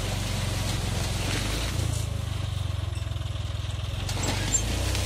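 Tractor engine running steadily as it pulls a disc harrow through banana stalks and leaves; the engine note shifts about two seconds in, and a short sharp knock comes near the end.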